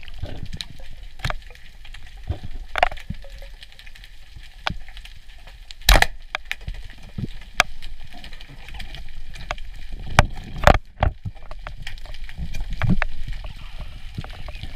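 Scattered sharp clicks and knocks heard underwater over a low steady rumble, the loudest about six seconds in and two more close together around ten to eleven seconds in.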